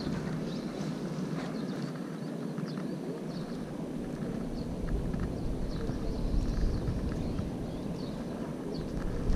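Wind buffeting the microphone in a steady low rumble that grows stronger about halfway through, with faint short high chirps scattered throughout.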